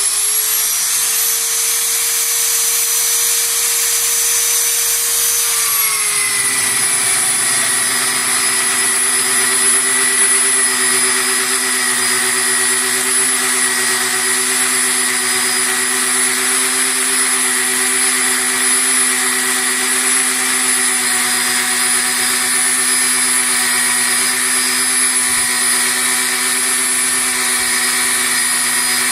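Feinko Cayken magnetic-base drill's motor whining at free speed. About six seconds in its pitch drops as the 22 mm TCT annular cutter bites and starts boring the hole. It then runs steadily under cutting load.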